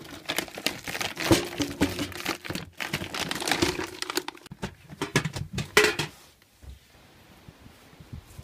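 Plastic bag crinkling and rustling as a hand rummages inside a bag of horse treats, a dense run of irregular crackles. It stops about six seconds in.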